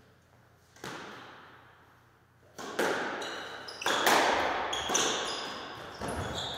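Squash rally: a series of sharp cracks of the ball off racket and walls, echoing around the court, starting with the serve about a second in and coming thick and fast in the second half. Short high squeaks, typical of shoes on the wooden court floor, mix in among the hits.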